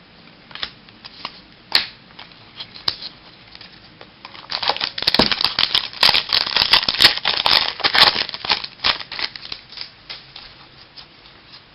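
Baseball trading cards and their packaging being handled: a few scattered clicks, then several seconds of dense rapid crackling and clicking in the middle, thinning out near the end.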